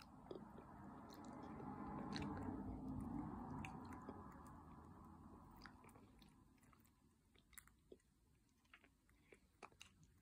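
Quiet chewing of noodles. A soft swell of eating sound over the first few seconds, then scattered small clicks.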